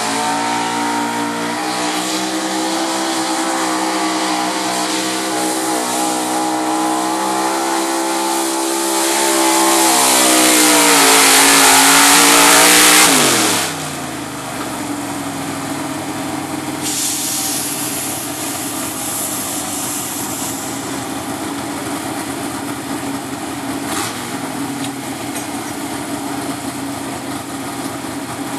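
Ford pulling truck's engine running at high revs under full load as it drags a sled, getting louder about nine seconds in. About thirteen seconds in the revs fall away sharply as the pull ends, and the engine settles into a steady idle.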